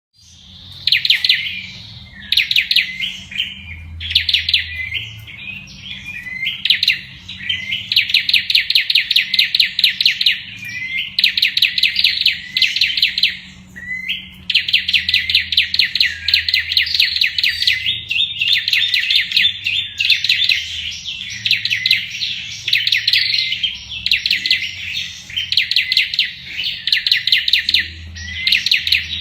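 Olive-backed tailorbird singing in long, rapid machine-gun trills: runs of fast, evenly repeated high notes, one after another with brief pauses between them.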